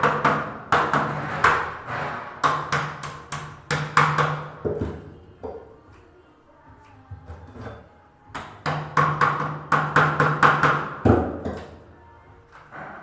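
Rapid hammer blows, about four or five a second, in three runs with a pause in the middle and a heavier knock near the end, while an exhaust fan is being fitted into a wall opening.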